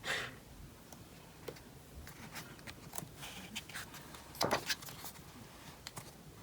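Pages of a large photo book being turned and handled: soft paper rustles and light taps, with two louder swishes, one at the start and one about four and a half seconds in.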